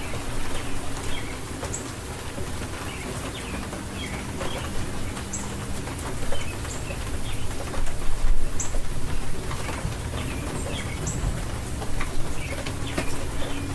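Steady rain falling, with birds calling over it in short, scattered high chirps.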